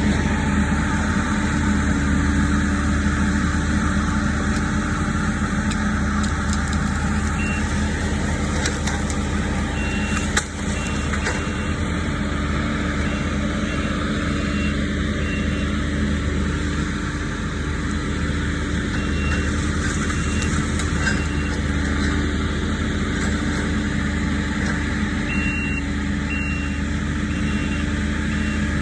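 Diesel engine of heavy land-clearing equipment running steadily under work, with a reversing alarm beeping in three spells of short beeps, about two a second.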